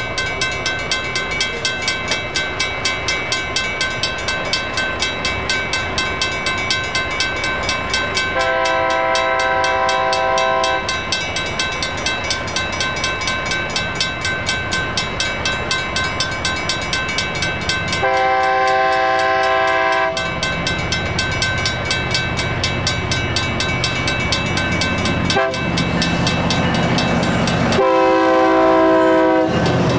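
Federal Signal mechanical railroad crossing bell ringing with steady, evenly spaced strikes. Over it, an approaching train's locomotive horn sounds two long blasts, a short one and a final long one, the standard signal for a grade crossing. The locomotive's engine hum grows louder toward the end.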